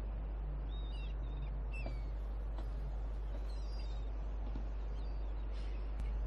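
A steady low hum with a few faint bird chirps, mostly in the first half.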